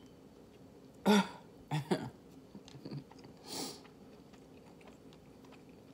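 A woman clearing her throat with short coughs: one about a second in, then two quicker ones just after, followed by a noisy breath, as she reacts to the burn of spicy noodles.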